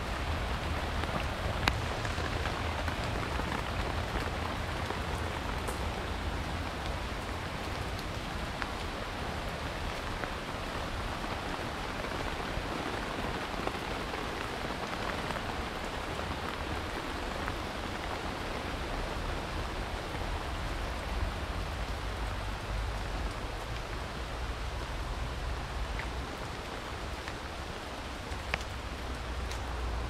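Steady rain falling on leaves and the wet trail, with scattered sharp drop ticks, over a low rumble.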